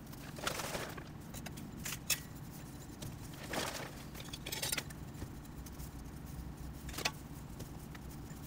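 Repotting sounds: loose potting soil scooped with a small metal trowel from a plastic bag and pressed into a pot by hand, heard as a few short rustling, scraping strokes with sharp ticks about two and seven seconds in, over a low steady hum.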